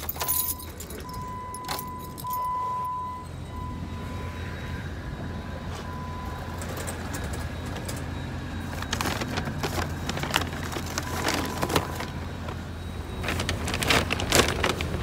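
Car sounds with no speech. There is a steady low hum, and a single high beep tone comes and goes, mostly in the first few seconds. Later come clicks and rattles of keys, the car door and a metal shopping cart, loudest near the end.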